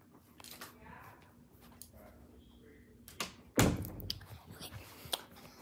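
A door thudding shut about three and a half seconds in, with a few lighter clicks and knocks around it.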